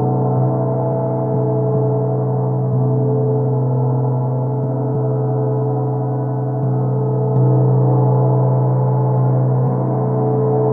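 A 24-inch gong by Grand Master Turkish Cymbals ringing with a sustained, deep hum and many overtones, its 'breathing' sound. It is kept going by soft strokes every second or two, and the sound swells a little about seven seconds in.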